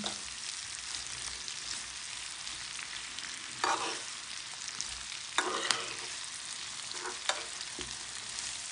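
Sliced onions sizzling in melted butter in a coated frying pan, with a metal spoon stirring them and striking the pan several times after the first few seconds.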